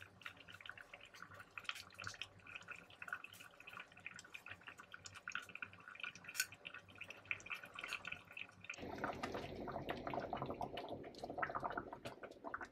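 Thin, flour-thickened chicken-broth gravy bubbling at a boil in a pan, with many small irregular pops. About nine seconds in, the bubbling turns louder and fuller.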